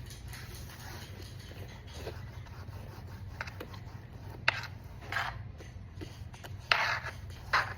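Homemade slime being worked by hand or in its container, with soft rubbing and scraping and four short, louder rasping sounds in the second half, over a steady low hum.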